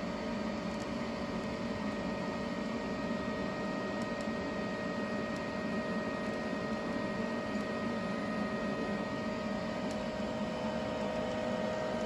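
TIG welding arc on stainless steel, fusing a scrap stainless end cap onto a pipe: a steady electric buzz made of several fixed tones over a low hum and hiss.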